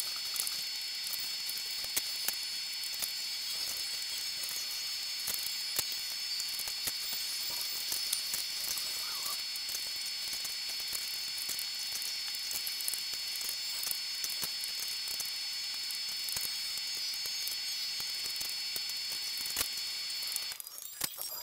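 Room audio sped up about twenty times, heard as a steady high hiss with a thin whine and a dense scatter of tiny clicks from hands working at the table. The hiss drops away shortly before the end.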